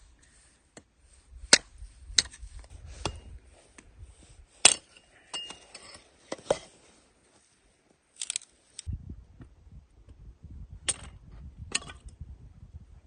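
A string of sharp clinks and knocks of small hard objects being handled, about seven in all, with a low rumbling handling noise in the last few seconds.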